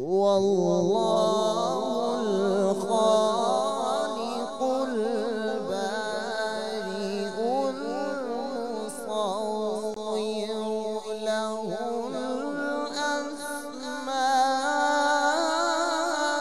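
A man reciting the Quran in the melodic, melismatic tilawat style, one long unbroken phrase with wavering ornaments, amplified through a microphone. It begins suddenly after a pause, and the voice climbs higher and louder near the end.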